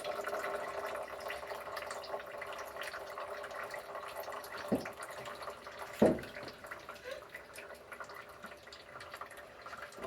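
Loader lift cylinder and its pins being worked free by hand: light handling noise with two sharp metal knocks about a second apart a little past halfway, the second louder.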